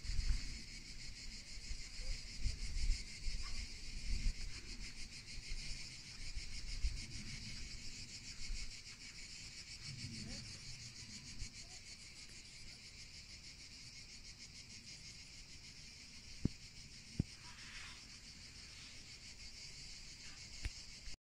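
A steady, high-pitched chorus of insects chirring with a fast, even pulse. Low rumbles of wind on the microphone come and go through the first half, and there are two sharp clicks near the end.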